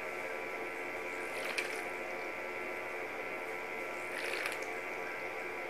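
Ratchet lock of a surgical needle driver clicking shut in two short runs, about a second and a half in and again near four seconds, over a steady background of held tones.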